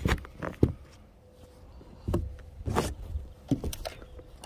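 Irregular knocks and scuffs from handling close to the microphone, in two clusters: a few in the first second and several more between about two and four seconds in.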